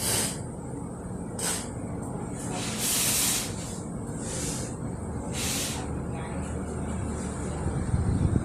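Five short bursts of hiss, the longest about a second in the middle, over a steady low rumble.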